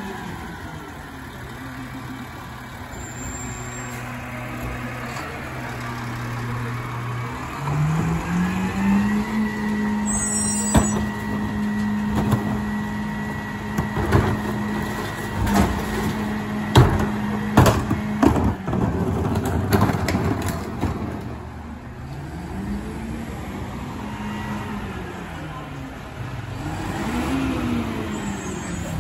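Rear-loader garbage truck's engine idling, then revving up about eight seconds in and holding a steady high note while the packer runs. Through the middle comes a string of sharp clanks and knocks from recycling being dumped and compacted. Near the end the engine note rises and falls twice.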